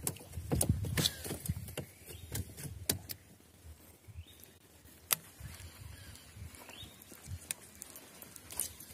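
Baitcasting reel and rod handled during a lure retrieve: irregular sharp clicks and knocks, with low bumps from handling in the first second or so and a single loud click about five seconds in. A few faint short rising chirps sound now and then.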